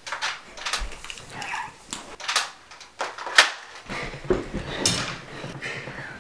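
Sharp plastic clacks of a toy pump-action foam-dart blaster being racked, a handful of them spread over several seconds, with a low rumble of movement in the second half.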